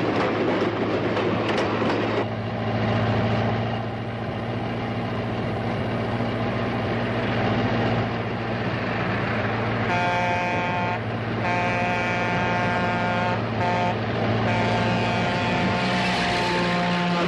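Diesel locomotive horn sounding the grade-crossing signal: two long blasts, a short one, then a long one, each a chord of several tones, starting about ten seconds in. A steady low rumble of the moving train runs underneath.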